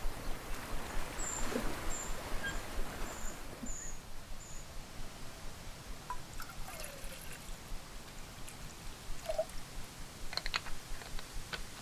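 Water pouring and trickling, with a few faint high chirps early on and small clicks about ten seconds in.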